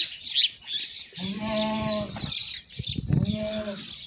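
Cattle mooing twice: a drawn-out moo of about a second, then a shorter one near the end, over short high chirps.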